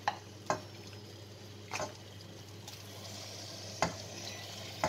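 Thick yogurt-marinated chicken being scraped from a bowl with a wooden spoon into a stainless pan of melted butter: a few short knocks and wet plops. A faint sizzle builds from about three seconds in as the chicken meets the hot butter.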